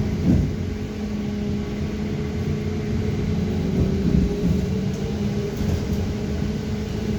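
BKM 321 trolleybus under way, heard from inside: a steady hum from the electric traction drive over road and body rumble, with a brief bump about a third of a second in.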